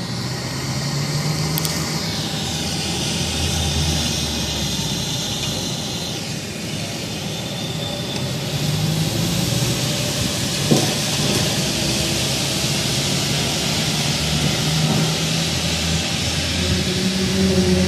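Low, steady droning hum with sustained low tones over a hiss, recorded outdoors as one of the unexplained 'strange sounds in the sky'; a single sharp click about eleven seconds in.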